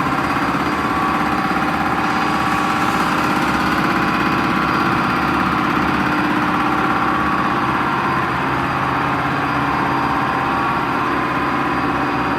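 Repaired John Deere hydraulic pump running steadily on a test stand under pressure: a continuous mechanical hum with a steady whine over it.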